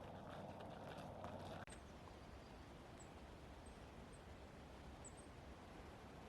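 Faint outdoor ambience with a few short, high bird chirps scattered every second or so. For the first couple of seconds, until an abrupt cut, a slightly louder crunching noise with small clicks.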